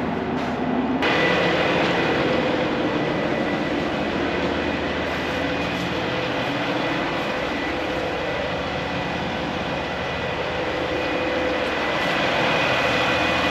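Heavy diesel truck engine running steadily at speed close by, with a thin steady whine over it. It becomes much louder abruptly about a second in.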